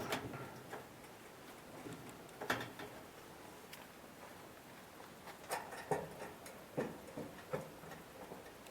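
A few light, scattered taps and clicks over faint background hiss, about once near the start and four or five times in the second half.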